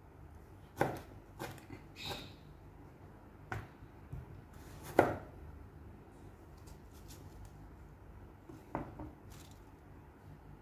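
A kitchen knife cutting tomatoes on a plastic cutting board: a handful of sharp knocks at irregular intervals, the loudest about five seconds in, then a last one near nine seconds.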